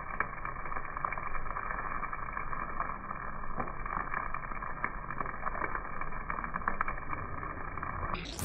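Fried rice being stirred and frying in a pan, with a steady hiss and many light spatula clicks and scrapes scattered through it. The sound is muffled and thin.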